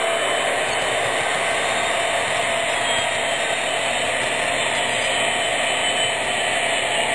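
HO scale model freight cars rolling past on the track, a steady whir of small wheels running on the rails.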